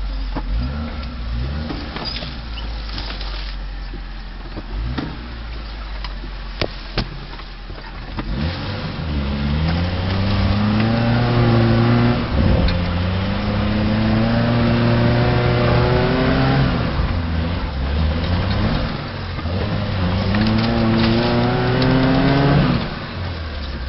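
Off-road 4x4's engine heard from inside the cabin: a low rumble with a few sharp knocks at first, then revving up about eight seconds in and held high, dipping once and climbing again before dropping off sharply near the end.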